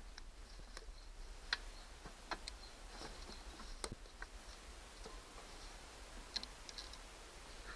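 Faint, irregular light clicks and taps, a few each second, from hands and tools working on a lawnmower while its gas tank is being freed, with faint high chirps in the background.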